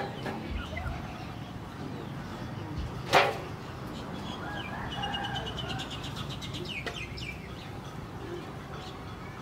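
Outdoor birdsong: a bird trills in a rapid run of high notes for about two seconds, a little past halfway. Before it, about three seconds in, comes a single sharp, loud sound.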